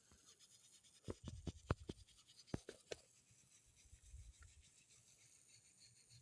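A quick, irregular run of sharp clicks and taps, about eight of them, starting about a second in and ending around three seconds in, over near silence.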